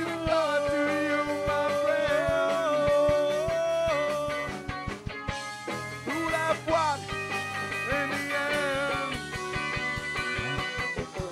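Live rock band playing: drum kit, electric bass and guitar, with the melody in long held notes that slide from one pitch to the next over steady drum hits.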